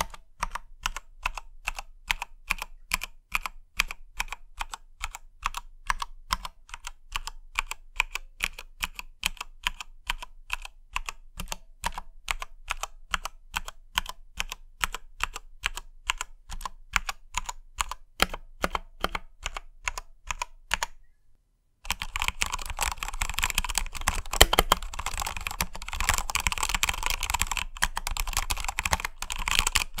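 Redragon K617 Fizz 60% mechanical keyboard with red switches being pressed. Single keys are struck one after another, about three a second. After a brief gap about 21 seconds in, fast two-handed typing follows, denser and louder.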